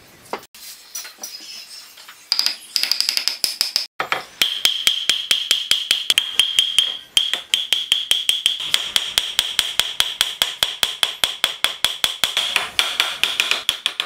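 Steel hammer striking a wooden mortise-and-tenon joint to drive it together, in a fast, even run of blows, about five a second, each with a metallic ring. A shorter run with a higher ring comes about two seconds in.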